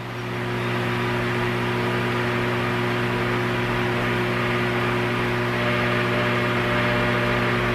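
A steady mechanical hum from a running motor, several low tones under an even hiss. It swells up over the first second and then holds level.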